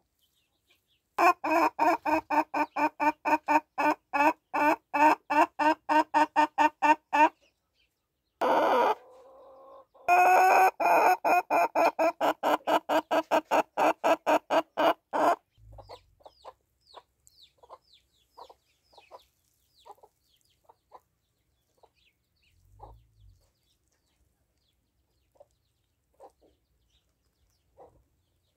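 Domestic hen calling in two long runs of rapid, loud, repeated clucks, about five a second, then only faint scattered soft sounds. It is the call a hen makes when she is about to lay.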